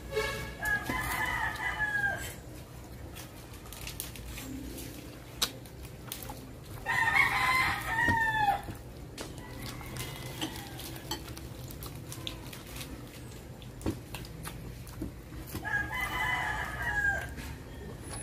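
A rooster crowing three times, several seconds apart, each crow lasting about one and a half to two seconds and dropping in pitch at the end, over a low steady hum.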